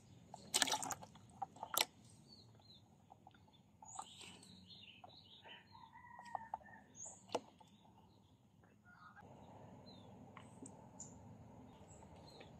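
A frog dropped into a clear plastic bucket: a crackling knock about half a second in, the loudest sound, then a sharp tap a second later and another near the middle. Birds chirp around it, and an insect keeps up a steady high drone.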